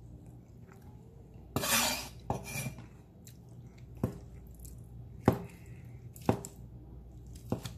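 Cleaver chopping deboned cooked chicken on a wooden cutting board: a brief scraping noise, then five sharp knocks of the blade meeting the board, roughly one a second. With no bones in the meat there is no crunch, only the clean knock of the blade.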